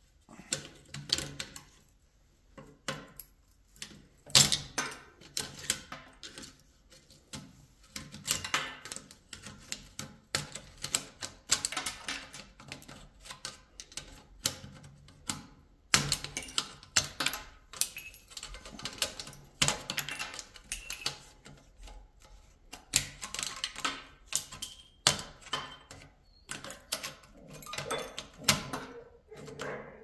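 Steel pry bar and screwdriver clicking, knocking and scraping against an air-conditioner coil held in a vise as its copper tubes are pried out of the perforated end plate: an irregular run of sharp metal clicks with short pauses.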